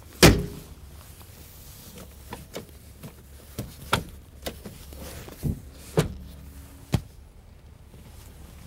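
Folding SUV rear seat being lowered back into place: a loud clunk from the seat mechanism right at the start, then a string of lighter clicks and knocks from its hinges and latches, the last about seven seconds in.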